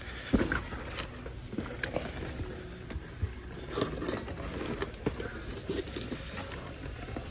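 Hot Wheels cars in plastic blister packs on card backs being handled and sorted from a shipping case: scattered light clicks, taps and rustles of plastic and cardboard.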